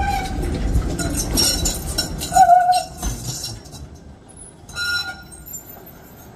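Yarra Trams B2-class tram rolling slowly over depot track, its steel wheels rumbling and clicking. A short, loud wheel squeal comes about two and a half seconds in. The sound then falls away, with another brief squeal near five seconds.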